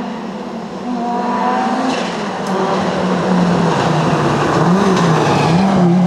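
An Audi quattro rally car's turbocharged five-cylinder engine, under load as the car drives past. The engine pitch rises and falls several times as the driver works the throttle and gears, with a couple of sharp cracks about two seconds in.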